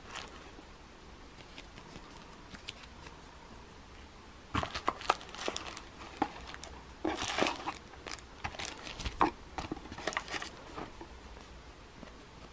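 A plastic bag crinkling as it is pulled out of a small cardboard box and handled, in crackly bursts starting about four and a half seconds in after a quiet start.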